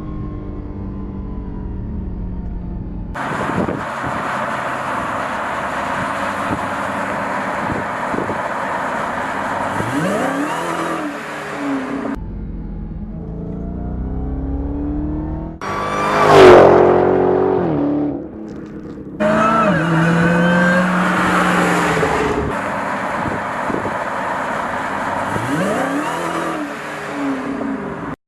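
Supercharged 6.2-litre HEMI V8 of a Dodge Charger SRT Hellcat, in a string of cut-together runs: the exhaust note rising and falling as it revs and accelerates. About halfway through comes the loudest moment, a sharp climb in pitch that then drops away, like the car rushing past.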